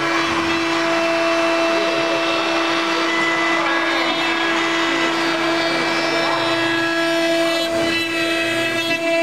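Wood CNC router running, giving off a loud, steady whine that holds one pitch throughout.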